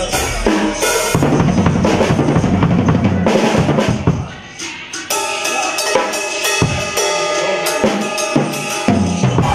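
A drum kit played: rapid drum strokes with cymbal hits. The playing drops away briefly about four and a half seconds in, then comes back with denser cymbal hits.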